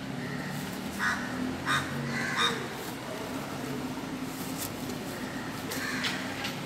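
Crows cawing: three short calls in quick succession about a second in, and another near the end.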